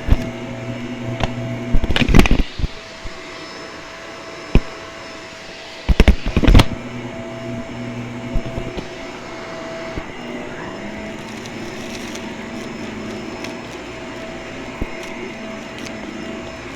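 Vacuum cleaner running close to the microphone with a steady hum. Two loud bursts of clattering come about two seconds in and about six seconds in, with a single sharp click between them.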